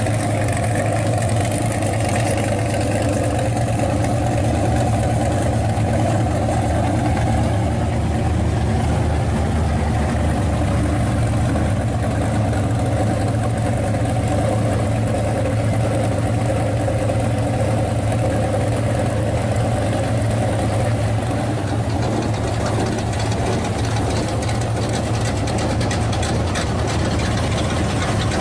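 A custom early-1950s Chevrolet pickup's exposed hot-rod engine idling steadily with a low, even rumble.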